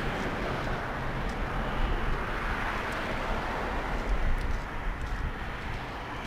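Vehicle noise passing by: a steady rushing hum with a low rumble that swells slightly around the middle and eases off near the end.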